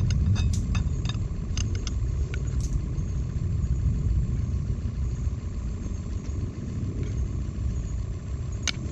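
A metal spoon clinking against a frying pan while butter is spooned over fish, a quick run of clicks in the first couple of seconds and one more near the end, over a steady low rumble.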